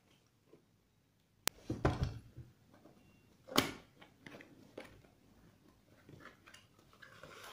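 Cardboard boxes and paper being handled during unpacking: a sharp click about a second and a half in, rustling and scraping, a louder sharp knock near the middle, then light scattered paper rustles and taps.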